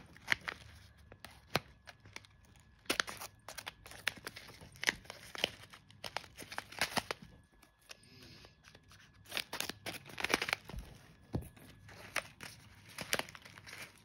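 A plastic pet-food pouch being handled and opened: the packaging crinkles and tears in irregular short bursts of crackling and rustling.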